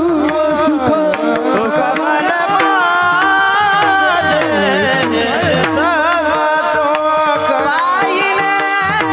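Male devotional singing in Marathi kirtan style, the voice sliding through ornamented, wavering melismas, accompanied by hand-drum percussion and sustained instrumental drone tones.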